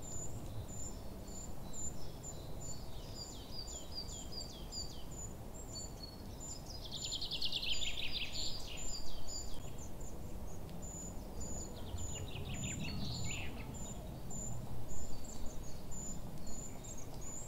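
Outdoor nature ambience: high, short chirps repeating steadily, with two flurries of rapid descending calls, over a low steady background rumble.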